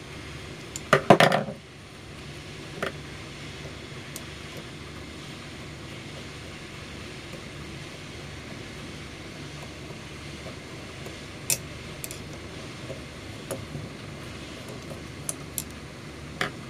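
Metal parts of a cut-open rotary compressor clanking and clicking as it is taken apart by hand: a loud clatter about a second in, then scattered light metallic clicks and taps. A steady low hum runs underneath.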